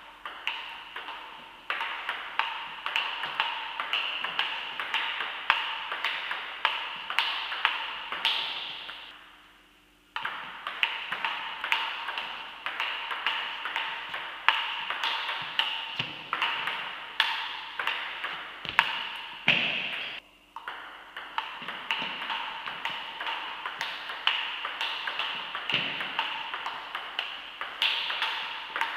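Table tennis rally: the celluloid ball clicking in quick alternation off the table and the players' bats, a few hits a second, echoing in a large hall. The clicking breaks off briefly twice, about a third and two-thirds of the way through.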